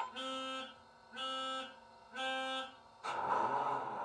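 ESU sound decoder in a Bachmann Class 66 model locomotive, playing through its small speaker: three pitched electronic beeps, each about half a second long and about a second apart. About three seconds in, a steady rushing noise starts.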